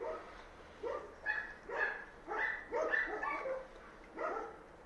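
A dog barking repeatedly, a string of short pitched barks about two a second, pausing briefly near the end.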